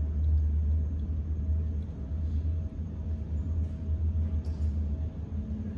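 Steady low rumble of an airliner being pushed back by a tug, heard muffled through terminal window glass.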